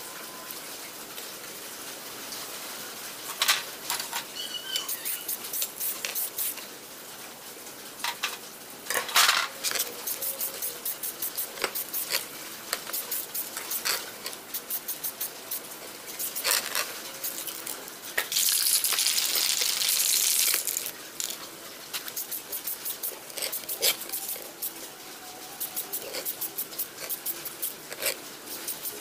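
Aerosol spray-paint can hissing in one burst of about two seconds, amid scattered clicks and taps of small metal parts being handled.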